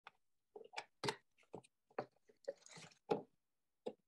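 Hand coring tool cutting into a spinning wooden bowl blank on a lathe: irregular short scraping and crunching bursts as the blade shears wood, with silent gaps between them.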